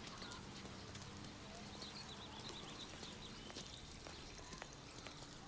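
Quiet sidewalk ambience: scattered footsteps on pavement over a faint steady hum, with a run of faint high chirps partway through.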